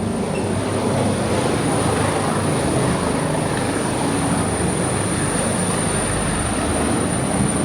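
Steady loud engine rumble and rushing noise, with a constant high-pitched whine over it.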